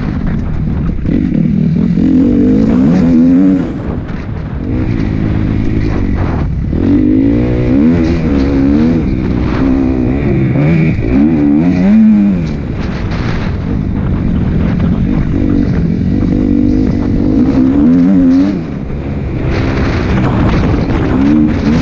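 Motocross bike engine revving up and falling back again and again as the throttle is opened and closed around the track. A few times it drops off sharply when the throttle shuts.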